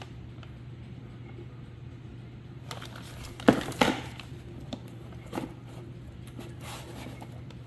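Handling of a new B&M floor shifter and its plastic packaging: scattered crinkles and clicks, the loudest a pair about three and a half seconds in, over a steady low hum.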